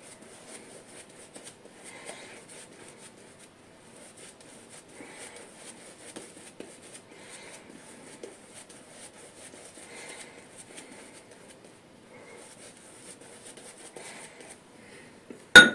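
A 24 mm synthetic shaving brush working soap lather onto a stubbled face and neck: soft brushing strokes. There is a single sharp click right near the end.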